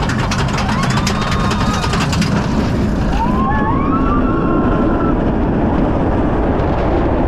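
Kumba steel roller coaster in motion: a loud, continuous rumble, with fast clicking for the first two seconds or so. From about three seconds in come a few high-pitched rising sounds.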